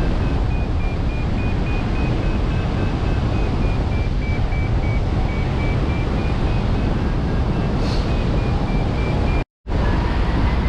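Wind rushing over the microphone in hang glider flight, with a flight variometer beeping rapidly at a high pitch that drifts up and down, signalling climbing lift. The sound cuts out briefly about nine and a half seconds in.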